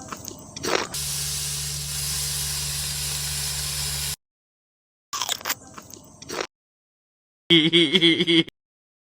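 A string of short edited sound effects cut apart by dead silence. First come a few clicks, then a steady hiss with a low hum for about three seconds, then a cluster of clicks and scrapes, and near the end a brief wavering tone.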